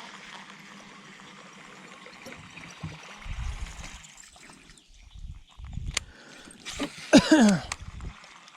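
Faint water trickling and gurgling at the surface, with a few low bumps. Near the end comes a short, loud call that falls steeply in pitch.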